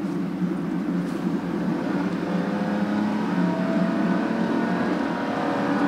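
Car engine and road noise inside the cabin of a car being driven on a highway; a steady engine hum comes up about two seconds in.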